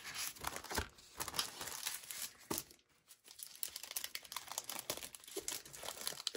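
Paper rustling and crinkling as sheets of a 6x6 designer paper pad are leafed through and one sheet is pulled out and laid down, in irregular bursts with a short pause about three seconds in.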